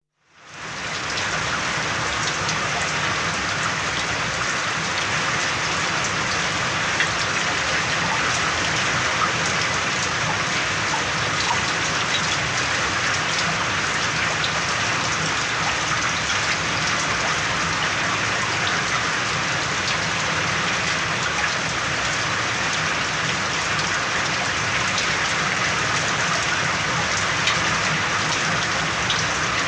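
Steady, drenching rainfall, a dense even hiss of drops with scattered individual drop ticks, fading in during the first second.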